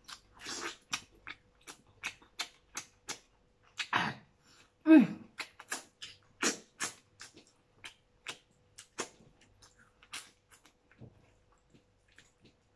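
A person eating crab by hand: a string of sharp, wet lip smacks and sucking sounds as shell pieces and fingers are sucked clean, with a few short squeaky vocal noises about four and five seconds in.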